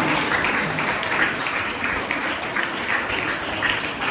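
An audience applauding: a steady, dense mass of hand claps.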